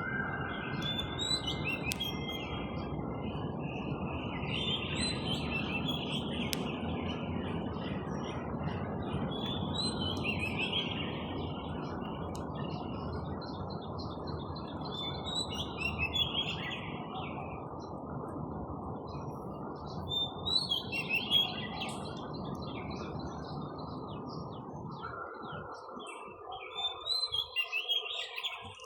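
Small birds chirping in scattered bursts of quick high notes, over a steady low background noise that falls away a few seconds before the end.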